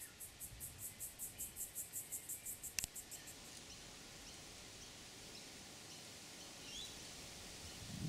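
An insect chirring in high-pitched pulses, about six a second, for the first three seconds or so, stopping just after a sharp click. After that, only faint outdoor hiss with a few faint, short, high bird chirps.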